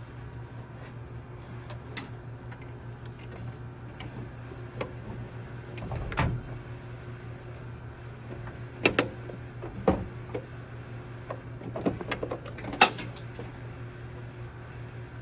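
Scattered sharp clinks and knocks of metal tools or parts being handled, mostly in the second half, over a steady low hum.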